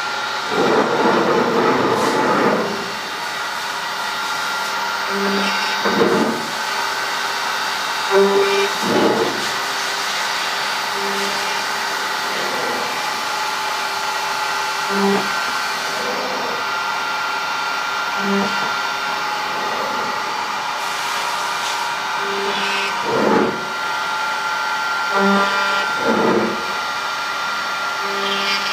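CNC router spindle running with a steady high whine as it trims a thermoformed plastic part, with short louder rasps of cutting every few seconds.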